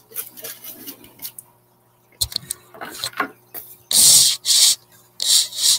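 Foam shipping cooler being handled and opened: a few light knocks and clicks, then two loud scraping rubs of foam near the end as the lid is worked off.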